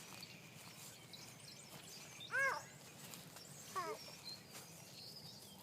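A cat meowing twice, short calls about a second and a half apart, the second sliding downward, with faint bird chirps behind.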